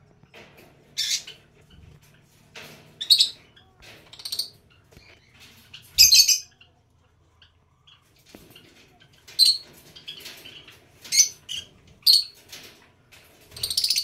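Small parrots, green-cheeked (yellow-sided) conures and lovebirds, giving short shrill squawks and chirps, about eight calls spaced a second or two apart. The loudest call comes about six seconds in.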